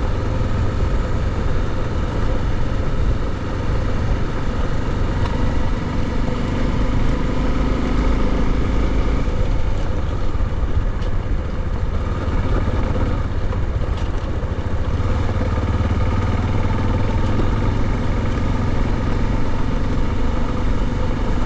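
Motorcycle engine running steadily while the bike rides along a gravel road, a continuous low drone with the tyres on loose gravel.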